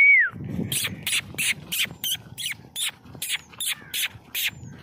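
A person calling a bull with a quick, regular run of about a dozen sharp hissing mouth sounds, roughly three a second, some with a short squeak.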